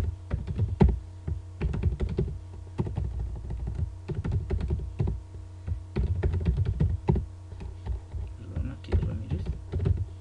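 Computer keyboard typing, keystrokes coming in short quick runs with pauses between, over a steady low hum.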